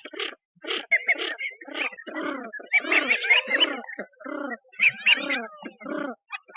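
Birds calling: a busy run of short, overlapping calls, some with quick rising and falling pitch.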